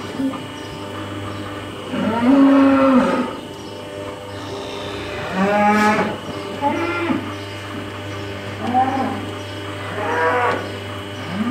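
Holstein cattle mooing: about five calls, the longest and loudest about two seconds in, with a steady low hum underneath.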